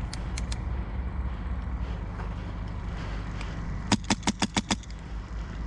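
An HPA airsoft rifle fires a quick string of about six shots, roughly seven a second, about four seconds in, over a steady low rumble.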